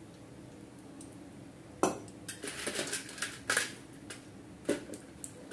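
Steel cooking utensils clinking and knocking against a steel kadai: one sharp clink about two seconds in, a quick run of clinks after it, then single knocks near the end, over a faint steady hum.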